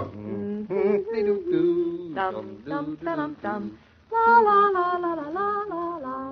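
A woman singing a wordless tune in sustained, gliding notes, phrase after phrase, with a short break about two-thirds through before she carries on louder.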